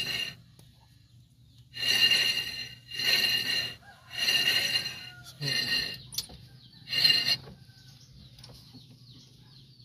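Suzuki multicab front brake disc spun by hand again and again: about six short whirring rasps, each under a second, roughly one a second, stopping about seven seconds in. The disc is being spun to check that the caliper and pads no longer drag.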